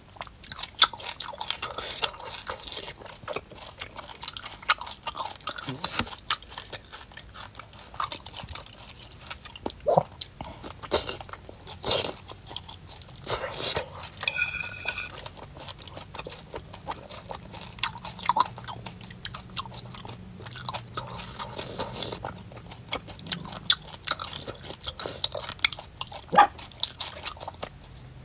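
A person chewing and biting into crispy, chewy braised pork, with irregular crunches and wet mouth clicks.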